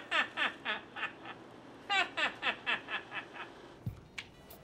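Laughter in two runs of short pitched calls, each call falling in pitch, about four a second, with a short pause between the runs.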